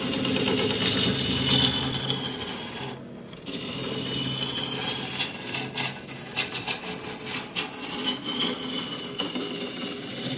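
Spindle roughing gouge cutting along a spinning wood cylinder on a lathe, peeling off long ribbon shavings: a steady scraping hiss with a crackly texture. It breaks off briefly about three seconds in.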